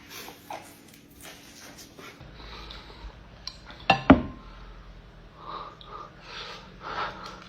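Tableware being handled: quiet rustling and clinks, with two sharp clinks close together about four seconds in.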